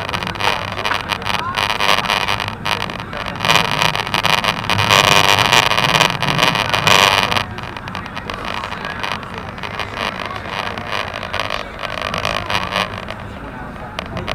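Running noise of a CRH high-speed train heard from inside the carriage: a steady rushing that swells louder for about three seconds midway, then settles back.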